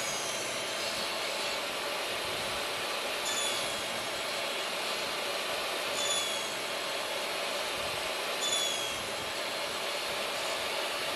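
Table saw running steadily while a board held in a finger-joint jig on a crosscut sled is cut, with four brief high squeals a few seconds apart.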